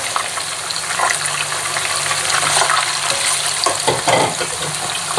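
Hot oil sizzling and crackling steadily around pieces of egg-and-cornflour-coated fish, squid and prawn frying in a pan.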